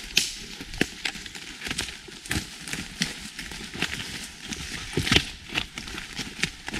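Footsteps crunching through dry autumn leaf litter and twigs on a woodland floor, several people walking at an uneven pace, with a few sharper snaps of twigs breaking underfoot.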